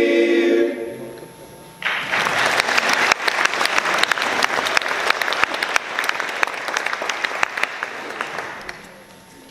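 A show choir's final held chord cuts off under a second in; after a brief pause the audience breaks into applause, which thins and dies away near the end.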